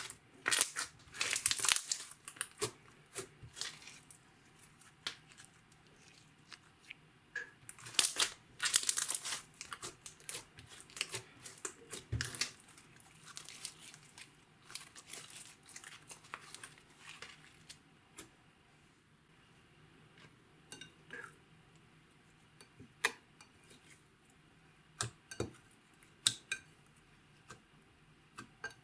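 Slime being worked by hand, crackling and popping in dense bursts through the first half, then only scattered small clicks and pops.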